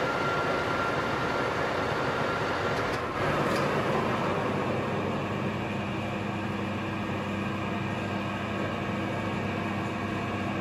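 Colchester metal lathe facing the end of an aluminium bar: a steady machining noise with a thin high whine. About three seconds in the sound changes, and a steady machine hum carries on with the chuck at rest.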